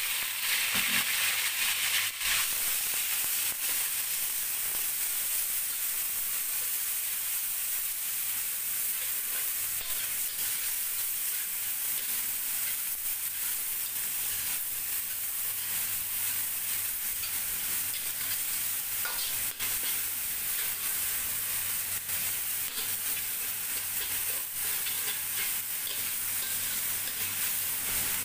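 Blended spice paste of turmeric, shallots, garlic and galangal sizzling in hot oil in a stainless-steel wok while it is fried for the base of a curry, stirred with a metal slotted spatula that ticks and scrapes against the pan. The sizzle is strongest in the first two seconds, then settles to a steady frying hiss.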